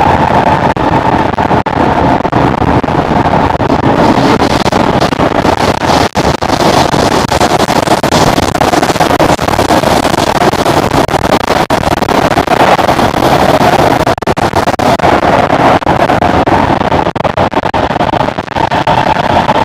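Singapore MRT train running at speed between stations, heard from inside the car: steady, loud rumble and rail noise with a constant whine.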